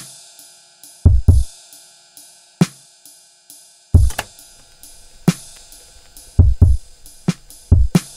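Background music: a drum-kit beat with heavy bass-drum hits and hi-hat ticks over sustained synth tones.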